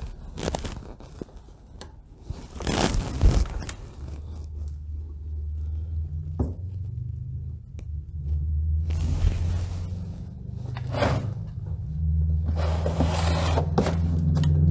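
Scraping and knocking of a screwdriver on an outboard's lower gearcase and the drain pan beneath, as the gear-oil drain and level screws are undone. There are several short bursts, the loudest about three seconds in, over a low droning background music that comes in after about four seconds.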